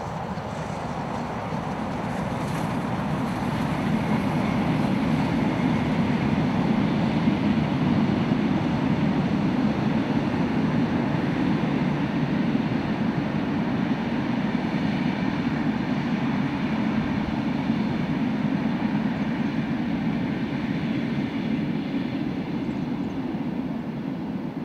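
Double-headed steam train, Victorian Railways R class 4-6-4 R711 leading K class 2-8-0 K183, passing close by with its carriages: a steady, dense running noise that builds over the first few seconds and eases slightly near the end.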